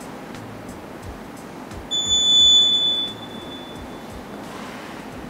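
One long, high electronic beep from a workout interval timer, starting about two seconds in and lasting about a second: the signal that the 30-second work interval is over and the 15-second rest begins.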